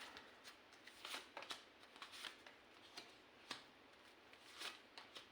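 Tarot cards being handled and laid out: faint, scattered flicks and taps of the cards at irregular intervals.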